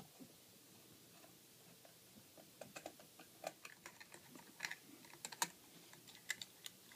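Near silence broken by faint, irregular small clicks and taps, more frequent in the second half, from hands working on a ceiling fan's metal light kit and its parts.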